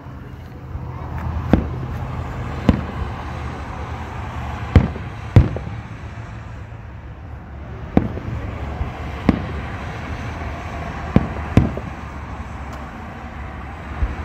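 Aerial firework shells bursting: a sharp boom every second or two, about nine in all, over a steady low background rumble.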